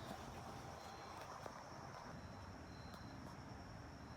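Faint background sound: a steady high-pitched whine with a few short high chirps scattered through it, cricket-like.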